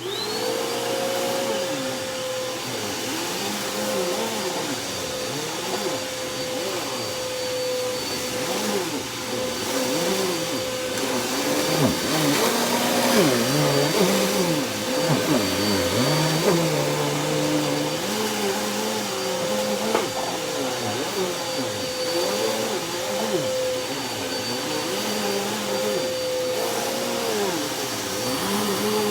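Dirt Devil Breeze cyclonic bagless vacuum switched on, its motor whine spinning up at once and then running steadily while it sucks up shredded paper. Lower tones wander up and down as it is pushed back and forth.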